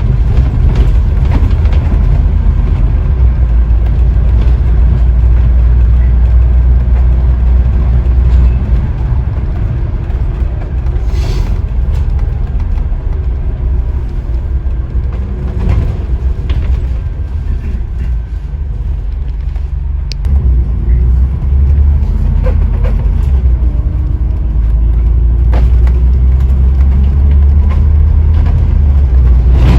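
Scania N94UD OmniDekka double-decker bus heard from on board while it drives, a steady, heavy low rumble of diesel engine and road noise. It eases off for a few seconds about two-thirds of the way in, then picks up again as the bus pulls away.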